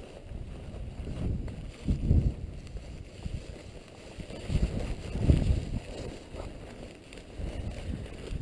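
Gusty wind buffeting the microphone in uneven low swells, strongest about two and five seconds in.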